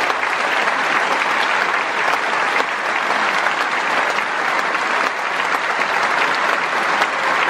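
A concert-hall audience applauding steadily, a dense, even clapping.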